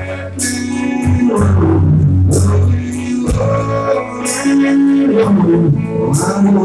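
Live band playing a rock song: electric guitar and drum kit over a moving bass line, with cymbal crashes several times.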